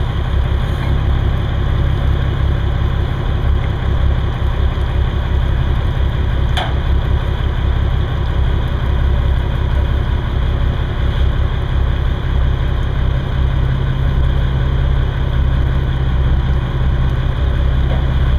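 Boat engine running steadily at low revs, a constant low rumble, with one brief click about six and a half seconds in.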